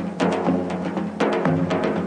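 Television programme intro music: a strong drum hit about once a second with lighter percussion between, over sustained low notes.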